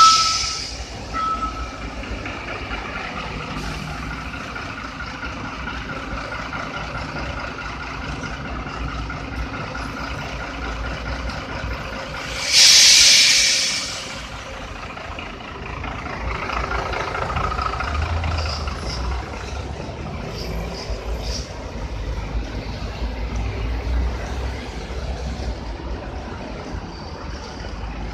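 Street traffic: vehicles running, with a loud hiss lasting about a second and a half near the middle and a low engine rumble through the second half.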